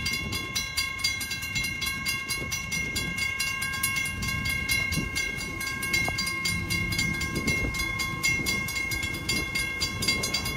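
WCH first-generation M-Bell crossing-signal bells ringing with a fast, even run of strikes while the crossing gates go up as the crossing clears.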